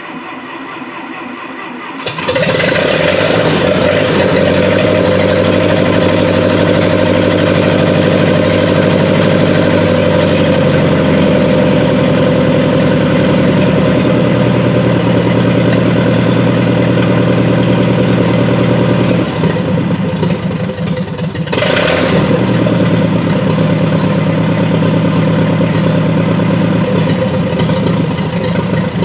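Massey Ferguson 202's Continental Z134 four-cylinder gasoline engine cranked by the starter and catching after about two seconds, then running loud through an open exhaust pipe disconnected from the muffler. Its speed steps down about halfway through. About two-thirds through the running dips and roughens, then a short sharp noise, and it runs steadily again.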